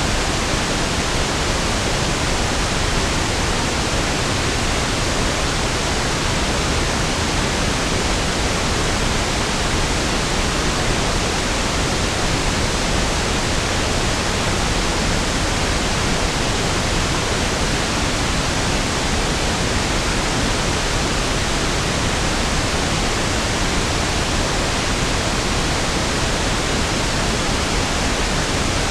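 Steady pink noise (1/f noise), an even hiss with equal energy per octave and no change in level or character.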